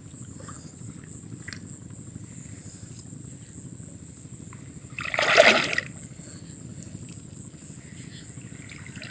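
Water dripping and sloshing as a wet gill net is hauled in by hand in shallow water, with one loud splash a little after halfway.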